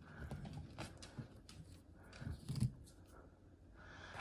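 Faint handling noises: scattered light clicks and rustles, with a few soft knocks about two and a half seconds in.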